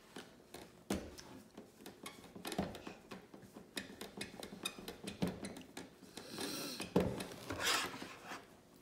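A toddler's hands slapping and patting a plastic high-chair tray: an irregular string of knocks and taps, the loudest about a second in and near seven seconds. Longer rubbing, scraping sounds on the tray come in toward the end.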